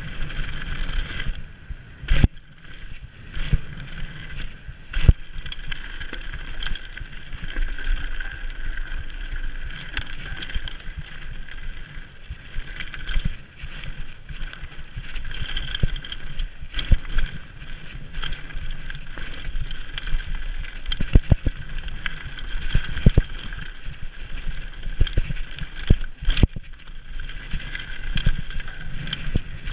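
Mountain bike rolling down a loose gravel and slate trail: a continuous rumble and rattle from tyres and bike over the stones, with several sharp knocks as the wheels hit bigger rocks.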